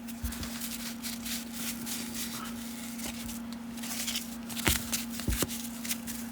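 Baseball cards being handled and flipped through by hand: light rustling and small ticks of card stock, with two sharper clicks a little over halfway through. A steady low hum runs underneath.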